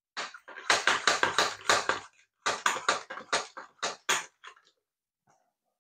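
The built-in hand plunger pump of a toy air-engine car being worked in quick strokes, about four a second, with a short break about two seconds in. It is filling the car's air reservoir.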